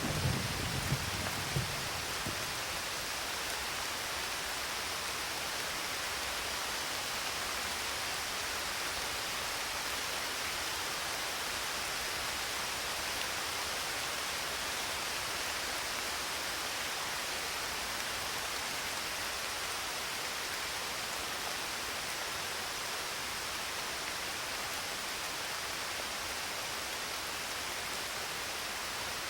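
Steady, even rain hiss. A rumble of thunder dies away in the first couple of seconds.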